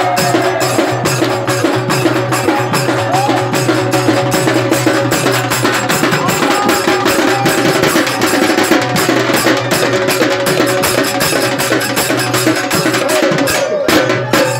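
Live Indian folk percussion: a dholak played with fast, dense hand strokes together with a hand-held frame drum, over a steady low tone. The rhythm breaks off briefly near the end.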